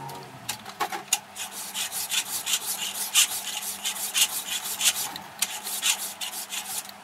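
Body file in a wooden backing being pushed across a cast aluminium carriage casting held in a vise: repeated rasping strokes, about two to three a second, as the surface is gently filed flat.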